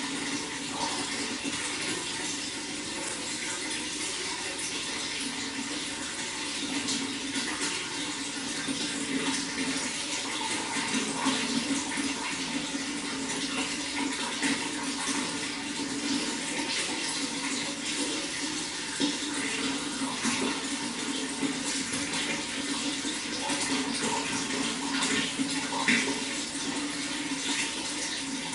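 Running water flowing steadily, with small splashes and gurgles through it.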